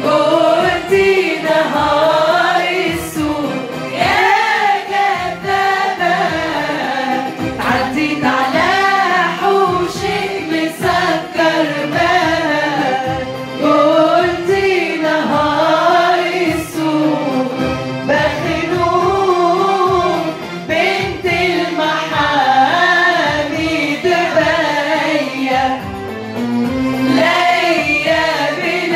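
A group of women singing a Tunisian song together, in long phrases whose melody rises and falls.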